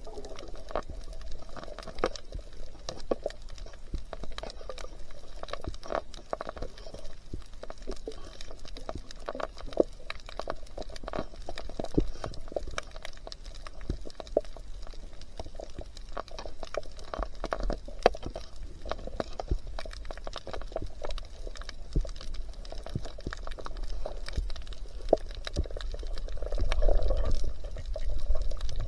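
Water sloshing and bubbling, with many scattered sharp clicks, growing louder near the end.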